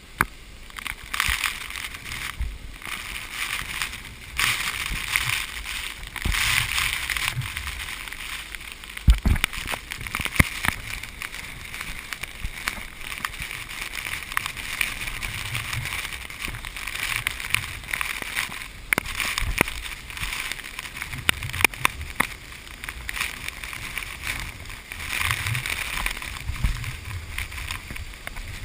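Rushing water of a tall waterfall, a continuous noise that swells and fades, with wind buffeting the microphone in irregular low thumps.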